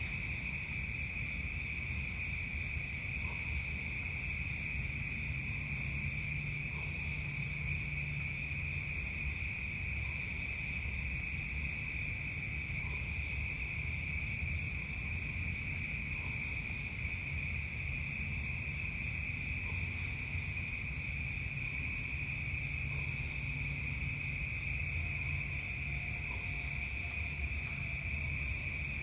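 Night insect chorus: a steady high-pitched trilling that runs without a break, with a brief, still higher call repeating about every three seconds, over a low steady hum.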